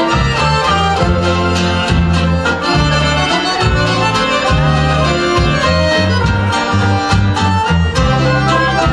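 Polish courtyard-band (kapela podwórkowa) music played live: an instrumental passage between verses, led by accordion with fiddle, strummed banjo and guitars over a bass line and regular drum beats.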